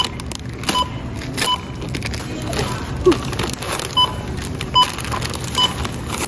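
Self-checkout barcode scanner beeping as candy bags are passed over it: short two-tone beeps, three about 0.8 s apart, a pause of about two and a half seconds, then three more. Crinkly plastic candy bags rustle between the beeps.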